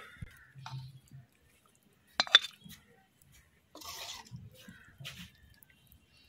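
Light clinks and knocks of dishes and utensils, the loudest a sharp clink about two seconds in, with brief scraping in between.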